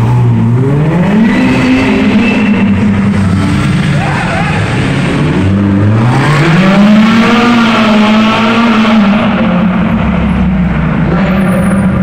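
Ferrari V8 supercars accelerating hard through a road tunnel, the echo of the tunnel around the engine note. A Ferrari SF90 Stradale's engine rises in pitch about a second in, then a Ferrari 458 Speciale's engine rises in pitch at around six seconds and holds high.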